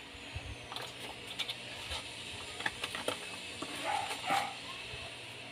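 Small cardboard box and paper packaging being handled: the box flap opened and paper rustling, with scattered light clicks and taps.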